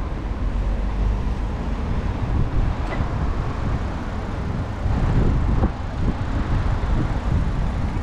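Road traffic on a city street, with cars going by, heard from a moving bicycle over a steady low rumble.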